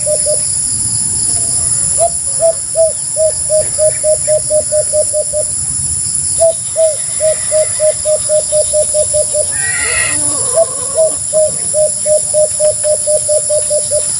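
White-eared brown-dove calling: a rapid series of short, even coos, about five a second, in three long runs separated by brief pauses. A steady high-pitched hum runs underneath, and a brief gliding call sounds about ten seconds in.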